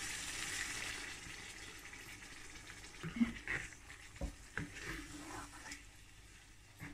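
Chicken frying in a pan, the sizzle fading over the first couple of seconds as wet green coriander masala paste goes in. Then a wooden spatula stirs the curry, knocking and scraping against the pan several times.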